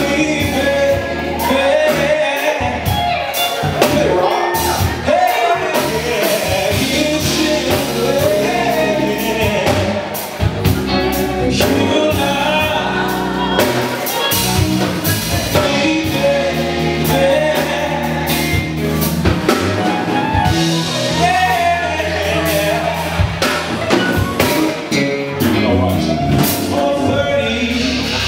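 A male singer performing live with a band: electric guitar, keyboards and drums.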